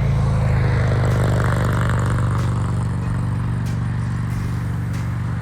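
A vehicle's engine running with a steady low drone that holds level throughout, with light clatter over it.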